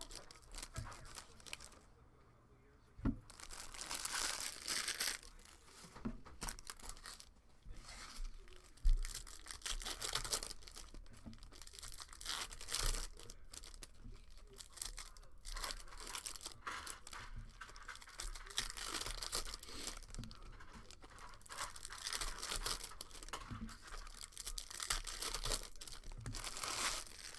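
Trading-card packs being torn open, with wrappers crinkling and crumpling in repeated rasping stretches and a couple of sharp knocks on the table.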